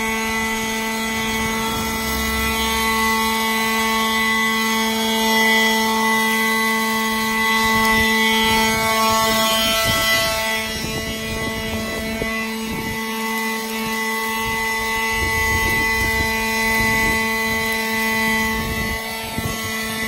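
Ryobi One+ 18-volt cordless brushless leaf blower running steadily with a constant whine, blowing leaves off the road.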